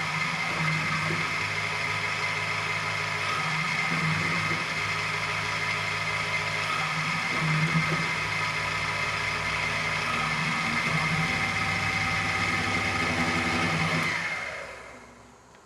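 Optimum BF 20 L Vario CNC milling machine running, its spindle motor giving a steady whine and hum, with a low swell about every three and a half seconds. About fourteen seconds in the machine winds down and stops.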